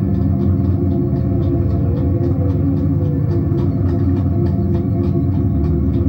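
Live band playing loud, heavy music: a dense, low, droning wall of sound with a steady beat of sharp hits about four times a second.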